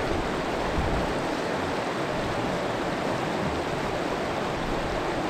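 Rushing water of river rapids, a steady, even rush.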